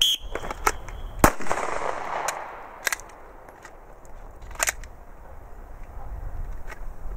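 Several pistol shots at irregular intervals, the loudest about a second in.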